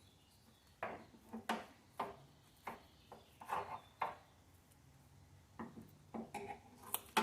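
Scattered light clicks, taps and rustles of objects being handled, about a dozen separate small sounds with quiet gaps between them.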